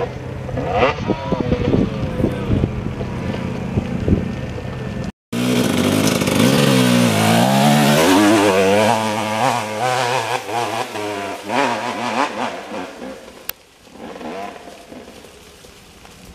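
Dirt bike engines. A bike holds steady high revs climbing a loose coal hill. After a sudden cut about five seconds in, another dirt bike revs up and down as it passes close on a trail, then fades into the distance.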